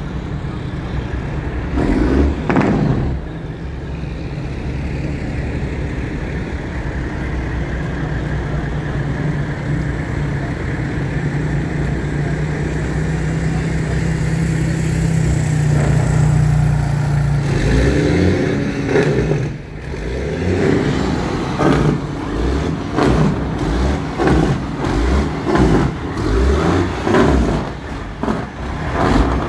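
A large vehicle's engine running steadily, slowly getting louder and a little higher in pitch. About two-thirds of the way through it gives way to uneven, choppy low rumbling.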